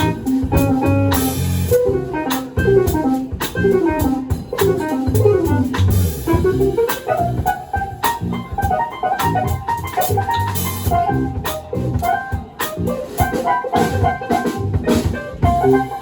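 Live band playing an instrumental passage: quick descending guitar runs over bass and drum kit, with a few cymbal crashes.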